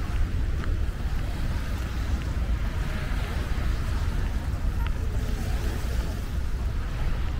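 Wind buffeting the microphone in a constant low rumble, over the wash of sea waves at the shore.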